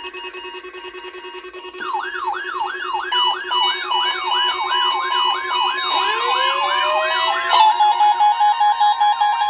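Several NOAA weather alert radios sounding their alarms together for the Required Weekly Test: overlapping steady beeping tones, joined about two seconds in by a siren-like sweeping tone repeating about three times a second, with a warbling tone taking over near the end.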